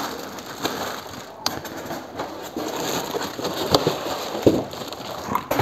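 Plastic wrapping crinkling and rustling as a boxed drill press is pulled out of its styrofoam packing, with a few sharp clicks and knocks.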